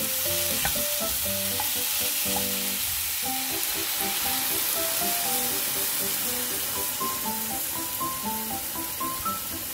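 Sausages, mushrooms, onion and rice cakes sizzling in a frying pan as they are stirred, then milk poured in over them partway through. A light melody of background music plays over the sizzle.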